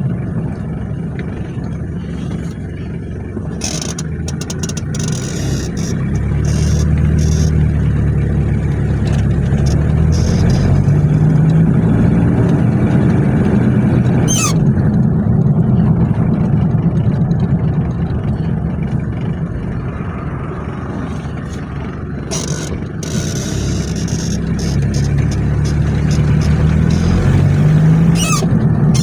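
Toyota 3L 2.8-litre four-cylinder diesel in a 1995 Hilux LN106 clattering as it accelerates, its pitch rising through the revs and then dropping at each gear change. It climbs like this once in the first half and again near the end, with a couple of sharp clicks.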